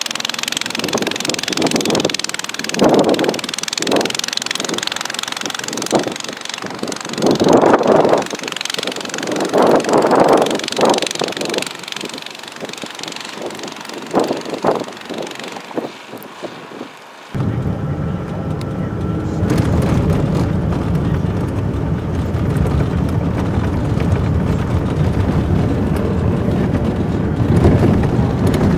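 Strong wind buffeting the microphone in irregular gusts, then, after a sudden cut about two-thirds of the way through, a Honda snowblower's engine running steadily.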